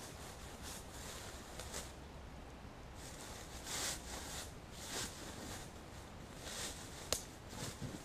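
Slow footsteps rustling through grass and leaf litter, soft and irregular, with one sharp click near the end.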